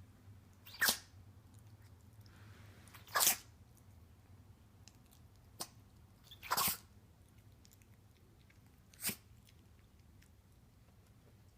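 A Chihuahua sneezing over and over in a fit after play: four sharp sneezes, about two to three seconds apart.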